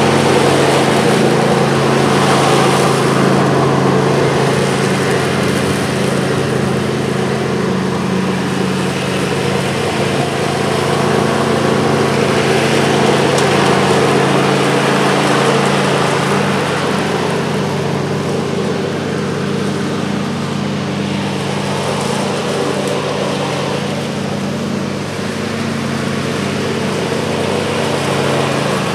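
John Deere LA135 riding lawn tractor's engine running steadily as the tractor drives across the lawn, on a test run of its freshly rebuilt cutting deck with new spindles, pulleys, blades and belt.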